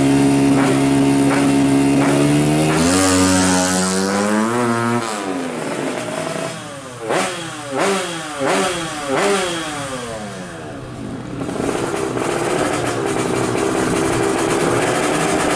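115 cc drag-race motorcycle with a stock carburettor and CDI, its engine held at high revs, then launching and accelerating away. The revs climb and drop through several quick gear changes as it recedes. In the last few seconds the engine comes back louder at low, steady revs.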